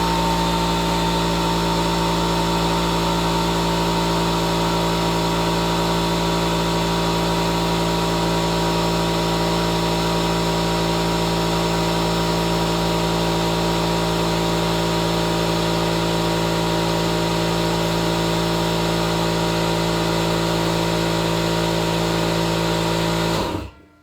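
Air compressor running steadily, then cutting off abruptly near the end.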